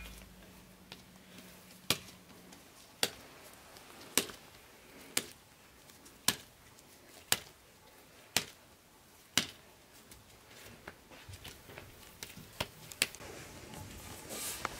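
Soft dough slapped and pressed between the hands, a sharp slap about once a second, eight in a row and then one more near the end.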